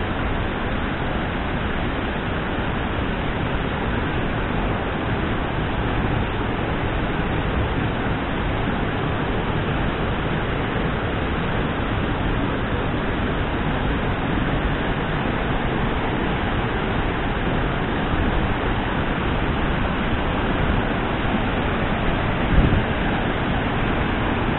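Steady rushing roar of the Curug Cikaso waterfall close by, plunging water and spray giving an even noise, with a brief low thump near the end.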